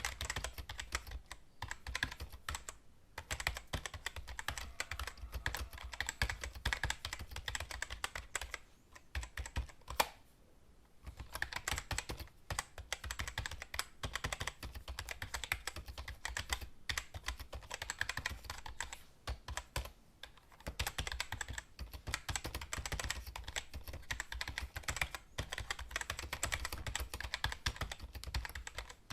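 Computer keyboard typing: fast runs of key clicks broken by short pauses, with a single sharper click and a brief lull a little after ten seconds.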